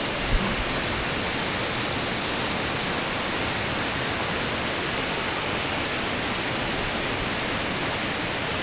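Steady, even rush of a mountain valley stream. A brief low thump comes just after the start.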